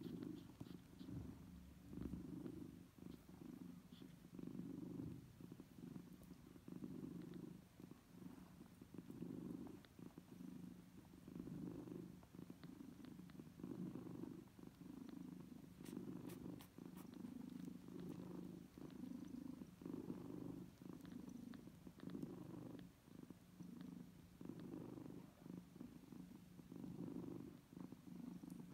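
Soft, close-up cat purring, a low rumble that swells and fades in slow, regular pulses, while newborn kittens nurse from their mother.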